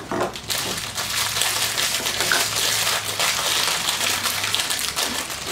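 Aluminium foil crinkling as it is unwrapped by hand from a small blind-box toy figure: a dense, continuous crackle.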